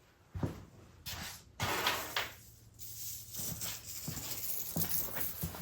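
Handling noise: a few clunks and knocks with scraping and rustling between them, including a longer scrape about two seconds in.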